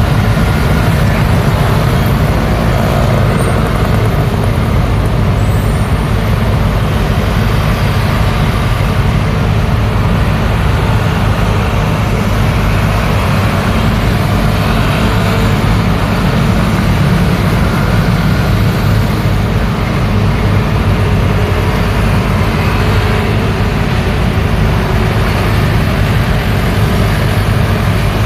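Street traffic: motor scooters and cars passing, a steady engine and tyre rumble that is heaviest in the low end.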